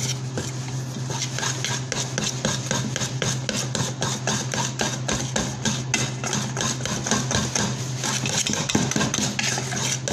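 Wire balloon whisk beating a thick batter in a stainless steel bowl: rapid, even strokes, several a second, each a metallic click and scrape against the bowl.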